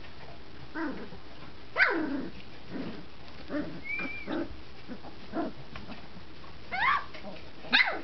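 Young puppies, 20 days old and just finding their voices, giving short yelps and squeaky barks as they wrestle together. The loudest is a falling yelp about two seconds in, with a thin squeal about four seconds in and another cluster of cries near the end.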